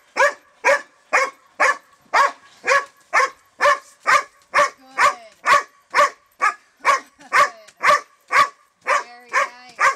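Belgian Malinois barking steadily at a bite sleeve held above it, about two sharp barks a second, with faint whines between the barks halfway through and near the end.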